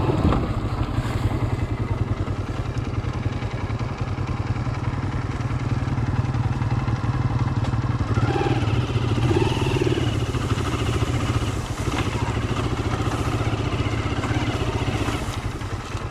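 Motorcycle engine running steadily under way, a loud, rapid low rumble of firing pulses.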